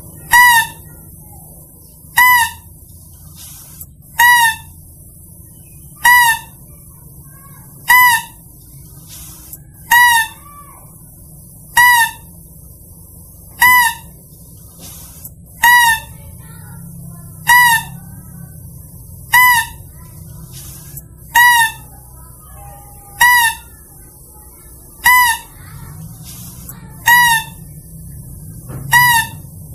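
Mouse-deer (kancil) hunting lure call: a short, high, squeaky call with a quick rise and fall in pitch, repeated evenly about every two seconds over a faint low hum.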